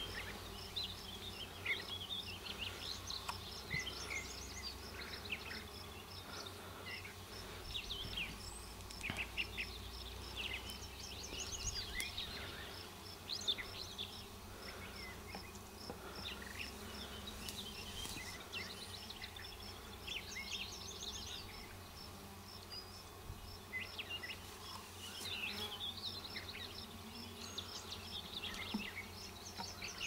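Honeybees buzzing around an opened hive during an inspection: a steady hum of many bees.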